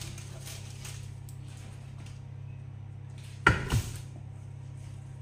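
Kitchen clatter from taking a baked pie crust in its baking pan out of the oven: two loud, sharp knocks about a quarter second apart, a little over three seconds in, over a steady low hum.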